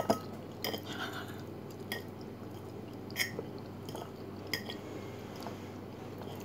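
Eating sounds: chewing, with about five short, light clicks of a metal fork against a dinner plate while twirling spaghetti, over a steady low hum.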